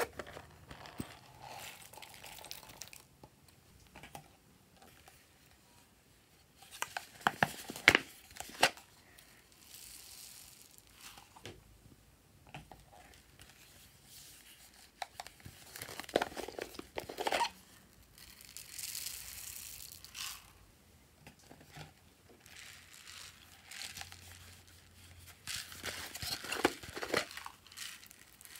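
Plastic toy containers clicking and clattering as they are handled and opened, and styrofoam foam beads poured out in hissing, rustling streams onto clay in a glass dish. Three bursts of sharp clicks come several seconds apart, with quieter rustling pours between them.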